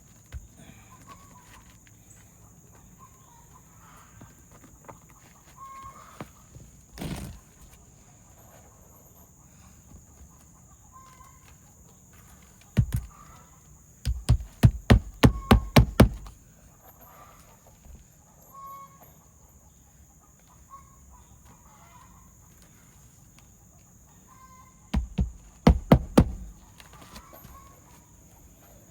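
Hammer nailing roof shingles back down: a single strike, then a quick run of about eight sharp blows, and later a second run of about five. Chickens cluck faintly in the background.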